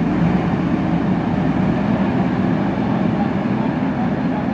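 JCB 3DX backhoe loader's diesel engine running steadily under load.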